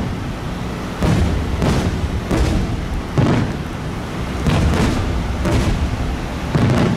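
Large aerial fireworks shells bursting in quick succession, about eight deep booms in seven seconds, each followed by rolling echo over a steady low rumble.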